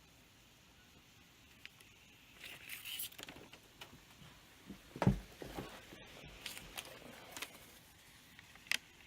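Irregular clicks, taps and rustling of something being handled, with a single louder knock about five seconds in.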